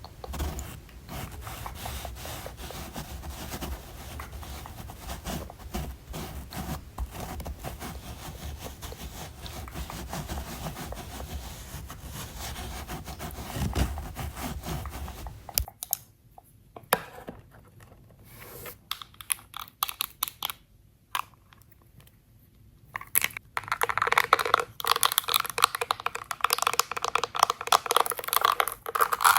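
Close-miked ASMR makeup sounds: rubbing, scratching and tapping on cosmetics and their packaging. About halfway the sound cuts to quieter scattered clicks, then turns to busy crisp scratching and tapping for the last several seconds.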